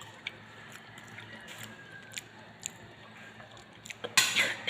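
A person eating banana cue, the caramelised sugar-coated fried saba banana: quiet chewing with a few faint sharp clicks, then a short, louder burst of noise near the end.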